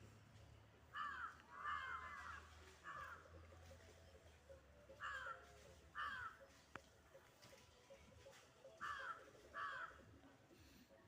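A crow cawing faintly, short harsh calls that come mostly in pairs about three times.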